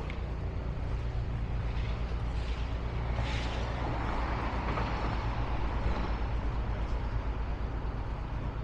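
A heavy vehicle engine running steadily as a low, even rumble, with a brief hiss about three seconds in.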